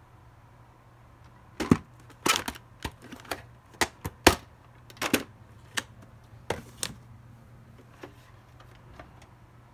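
Plastic VHS clamshell case being handled and opened to take out the cassette: a quick, irregular series of sharp plastic clicks and knocks for about five seconds, then a couple of faint taps.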